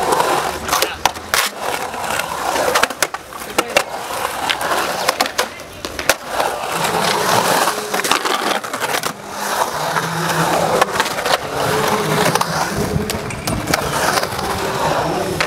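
Skateboard rolling and carving around a concrete bowl: a continuous rolling rumble of the wheels on the smooth concrete, broken by many sharp clacks and knocks as the board meets the coping and transitions.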